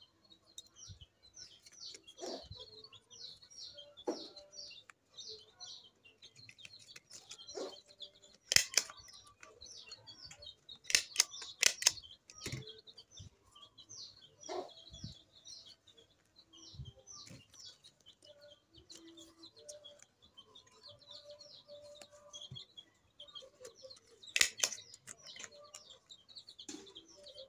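A small bird chirping in quick repeated runs of short, high chirps, over the rustle of banana leaves being handled. A few sharp clicks, the loudest sounds, come about 9 seconds in, three more around 11 to 12 seconds and one near the end: a hand stapler fastening the folded banana-leaf petals.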